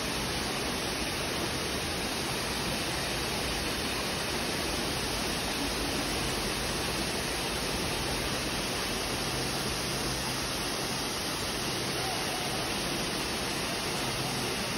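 Multnomah Falls' lower tier pouring into its pool: a steady, even rush of falling water.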